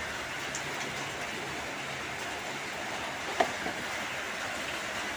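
Steady hiss of a cleaning spray blasting into an engine block's oil passages to flush out old settled dirt, with one light tap about three and a half seconds in.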